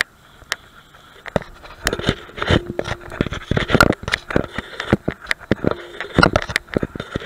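Footsteps on a brick pavement at an even walking pace, about two a second, starting a little over a second in, with clothing and gear rustling and knocking in between.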